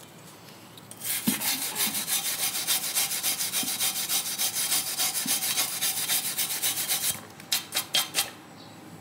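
Fast back-and-forth rubbing or scraping strokes, several a second, starting about a second in, then four slower separate strokes near the end.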